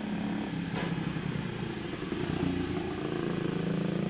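An engine runs steadily with a low drone that rises a little in pitch around the middle. A single sharp click comes about a second in.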